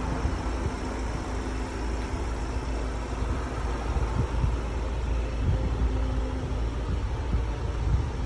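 Ford Transit's 2.0 TDCi four-cylinder diesel engine idling steadily, a low, continuous rumble.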